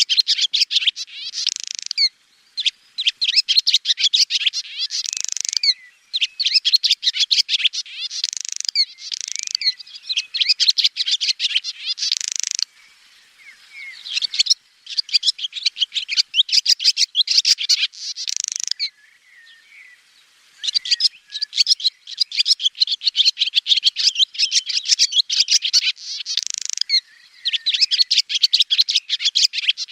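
Swallow singing: phrase after phrase of rapid, high twittering, each phrase a few seconds long and ending in a louder burst, with short pauses between.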